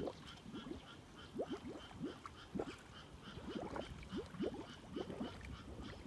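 A chorus of frogs calling: many short croaks, each rising in pitch, overlapping at irregular intervals. Behind them is a faint high-pitched chirp repeated about three times a second.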